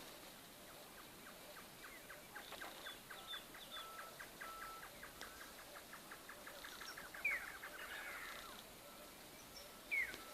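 Faint bird calls: a long run of quick ticking notes, with two sharp falling chirps near the end.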